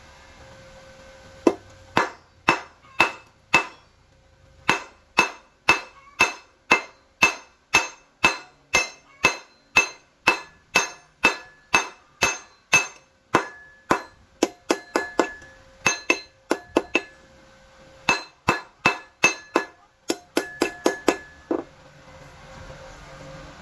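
Hammer striking steel, about two blows a second, each with a short metallic ring. There is a brief pause twice, and a quicker run of blows near the end before it stops.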